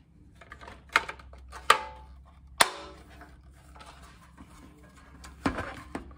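Sharp plastic clicks and knocks as a bilge pump's motor housing is handled and snapped back onto its strainer base, the sharpest about two and a half seconds in. Near the end comes a duller knock as the pump is set down on its galvanized steel mounting plate.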